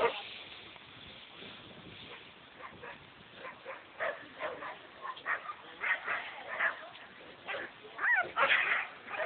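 Groenendael (Belgian Shepherd) dog giving short yips and whines in quick bursts, starting about three seconds in and loudest near the end.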